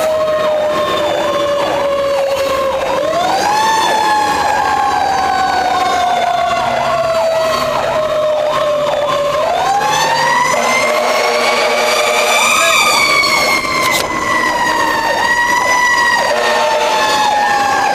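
Fire engine sirens heard from inside the cab on an emergency run. A fast yelp warbles about two and a half times a second, layered with a slow wail that rises quickly and then slowly falls, rising again about three and ten seconds in.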